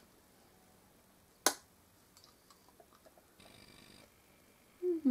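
A paper till receipt being handled in a quiet room: one sharp click about a second and a half in, then a few faint ticks and a soft rustle. Near the end a woman hums a short 'mm-hm' as she reads.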